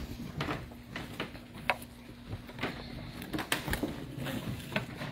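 Scattered light knocks and clicks in a quiet room, irregular and uneven in strength, over a faint steady hum that fades out about halfway through.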